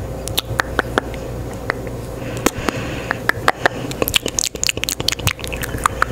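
Close-miked mouth sounds: a run of wet clicks and lip smacks, sparse at first and coming thick and fast from a couple of seconds in, over a steady low hum.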